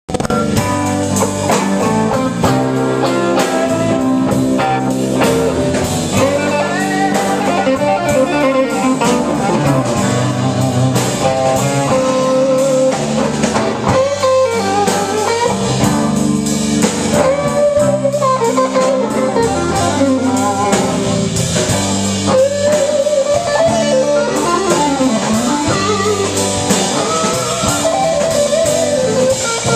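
Live blues band jamming: an electric guitar plays lead lines with bent notes over bass and a drum kit.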